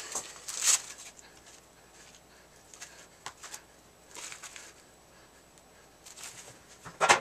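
Plastic meat tray crinkling, then soft scattered slaps and taps as raw chicken tenders are laid by hand into a nonstick frying pan, with a sharper handling clatter just before the end.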